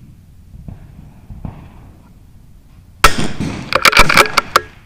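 .22 LR rimfire rifle shot about three seconds in, a sharp crack that fades quickly, followed within a second by a quick run of sharp clicks.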